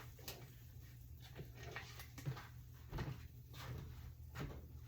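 Faint, scattered clicks and knocks, about five of them, over a low steady hum.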